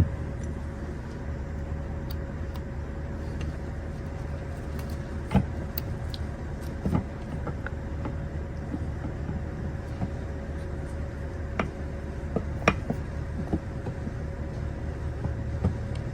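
Scattered light clicks and knocks of parts and tools being handled while the camshafts and lifters are removed from a 1.8T cylinder head, over a steady low hum.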